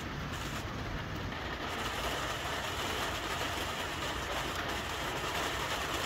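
Steady rain falling on fig leaves and a small greenhouse, an even hiss that grows a little heavier about two seconds in.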